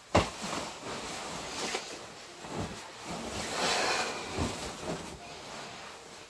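White cotton calico rustling and swishing as it is handled, shaken out and spread over a duvet, with a sharp bump just at the start.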